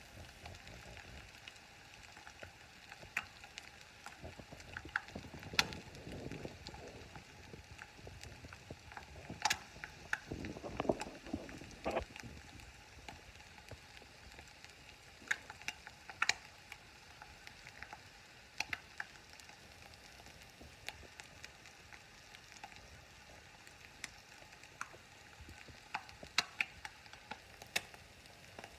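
An egg frying in oil in a frying pan on its flipped side: a soft steady sizzle broken by scattered sharp crackles and pops.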